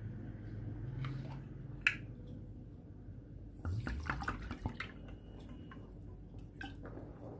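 Water being measured out into a cup for sugar syrup: scattered drips and light splashes with a sharp click, bunched around the middle, over a faint low hum that fades after the first second or so.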